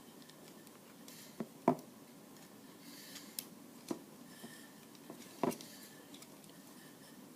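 A few light, scattered clicks and knocks of small hard plastic toy parts being handled, the sharpest about a second and a half in and another near the end.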